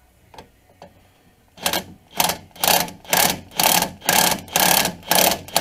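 Impact wrench running a bolt tight through a swivel socket, hammering in short bursts about two a second, starting near two seconds in after a couple of faint clicks; it is tightening an engine mount bolt.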